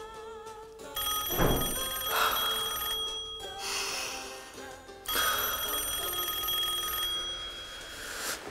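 Telephone bell ringing twice, each ring about two seconds long and about four seconds apart, over sustained film-score music with swelling whooshes between the rings.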